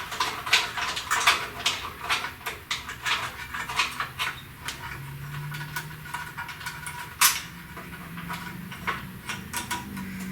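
Irregular clicks, clinks and knocks of hand tools and metal hardware while bolts and ground wires are worked loose from a car's core support, with one louder knock about seven seconds in.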